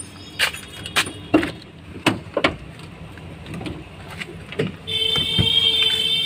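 A car door being opened and handled as someone gets in: a series of sharp clicks and knocks, then a steady high tone from about five seconds in.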